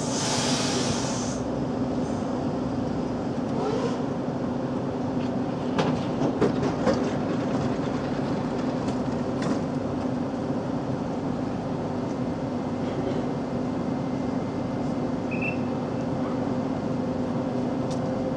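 Siemens Desiro ML electric multiple unit standing at a station platform with its doors open, its onboard equipment giving a steady electric hum. A hiss of air fades out about a second in, and a few clicks and knocks come around six to seven seconds in as passengers board.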